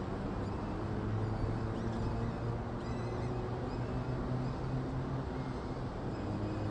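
Steady low hum and rushing background noise on a falcon nest-box microphone, with a few faint high chirps now and then.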